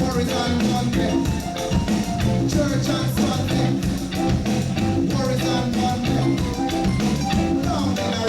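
Live reggae band playing an instrumental passage, with bass notes and a drum kit keeping a steady beat.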